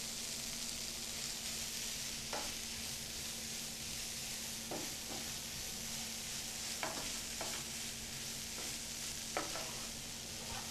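Paneer and mashed corn mixture sizzling gently in a frying pan as a wooden spatula stirs it, with about five short scrapes of the spatula against the pan.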